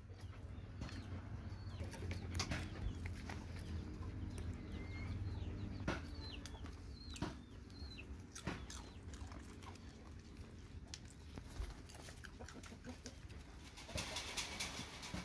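Faint scattered chicken clucks and short bird chirps over a low steady hum. Near the end there is a denser rustle and scuffle as dogs nose at the ground.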